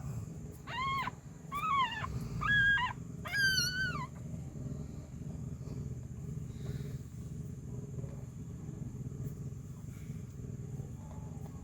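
A cat meowing four times in quick succession, each call short and arching in pitch, the last one higher and wavering. A steady low background rumble runs underneath.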